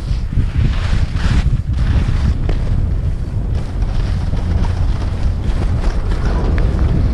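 Heavy wind buffeting on the microphone of a rider moving fast downhill, over the hiss and scrape of edges carving across packed, groomed snow, which swells and fades with each turn.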